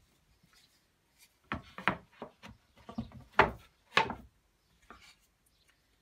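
Plywood panels of a slab mould knocking and scraping against each other as a side wall is fitted into the slotted base. A quick run of sharp wooden knocks with short scrapes comes between about one and a half and four seconds in, loudest near the end of the run, then one faint knock shortly after.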